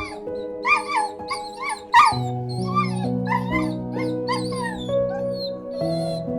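Calm instrumental music with slow, held notes under a run of short, high animal calls, two or three a second, which grow fainter and higher after about two seconds.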